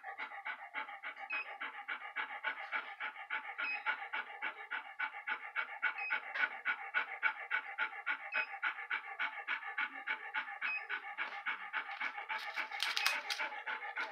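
Large dog panting rapidly and steadily through a basket muzzle, about five breaths a second, with a brief sharper scrape near the end.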